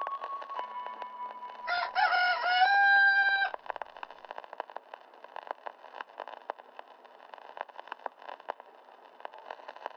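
A rooster crows once: a cock-a-doodle-doo about two seconds long that climbs and then holds on a steady note before cutting off. Faint crackle follows it.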